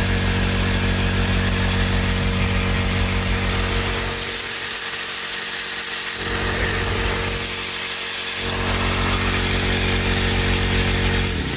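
Husky electric air compressor running steadily, its motor and piston pump pulsing fast as it builds pressure slowly because the newly fitted line's connections are leaking. The pitch sags near the very end as it begins to shut off.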